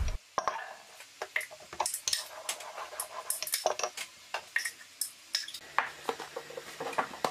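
Wooden rolling pin rolling out a sheet of baklava dough on a wooden counter dusted with cornstarch, with hands handling the dough: a scatter of irregular light knocks and clicks.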